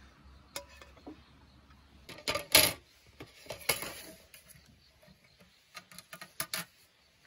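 Clatter and knocks of a slotted plastic spatula and a small frying pan being handled while a burger patty is set in place, loudest about two and a half seconds in, then a few small taps near the end.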